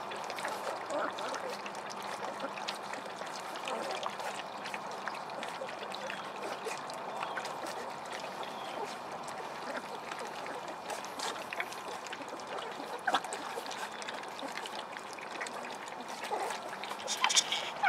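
A litter of Vizsla puppies lapping and slurping wet puppy mush from shallow metal pans: a steady wet smacking with many small clicks, and a few louder clicks near the end.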